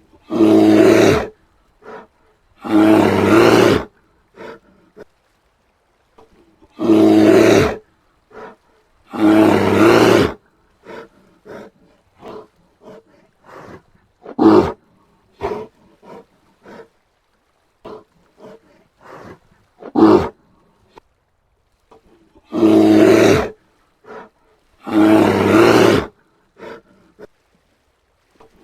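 Brown bear roaring: six long, loud roars of about a second each, coming in pairs, with short grunts and huffs in the quieter stretch in the middle.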